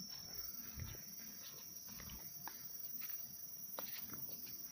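Footsteps of a person walking along a road at night, irregular scuffs and steps, over a steady high chirring of night insects.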